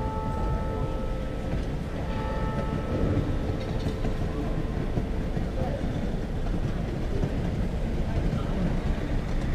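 Church bells of the Dresden Frauenkirche ringing in a full peal, with ringing tones that fade and return. They sound over a steady low rumble and a murmur of voices.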